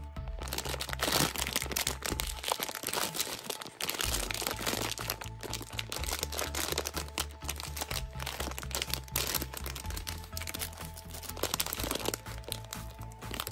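Crinkling and crackling of a shiny plastic gummy-candy bag being handled and opened, irregular and continuous, over light background music with a stepping bass line.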